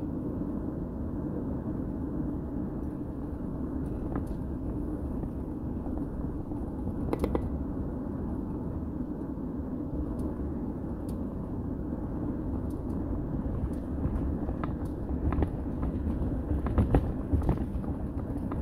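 Steady low rumble of a vehicle driving at highway speed, engine and tyre noise heard from inside the cab, with a few short light knocks or rattles, more of them near the end.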